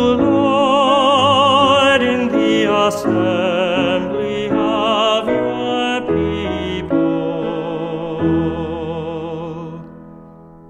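A solo voice singing the closing refrain of a responsorial psalm with strong, operatic vibrato over sustained accompaniment. The last chord is held and fades away near the end as the piece ends.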